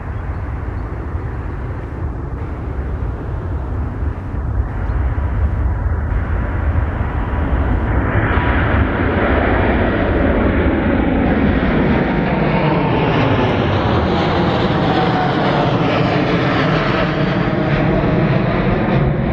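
A Boeing 787-9's twin GEnx-1B turbofans at takeoff power as the airliner lifts off and climbs overhead. A low jet rumble grows steadily louder and brighter, and about eight seconds in it becomes a full jet noise with slowly sweeping tones and a faint whine that falls in pitch.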